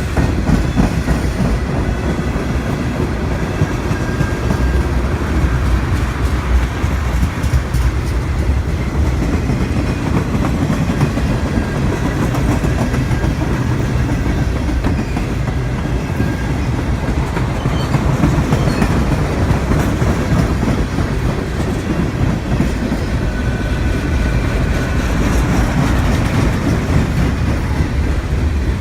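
Train cars rolling past, wheels clacking over the rail joints over a steady low rumble.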